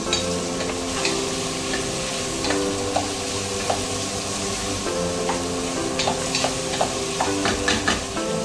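Food sizzling in hot oil in a cooking pan while a spoon stirs it, with repeated sharp scrapes and taps of the utensil against the pan that come more often toward the end.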